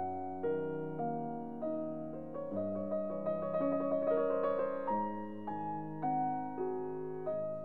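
Background piano music: notes struck one after another and left to ring out, with a quicker run of notes in the middle.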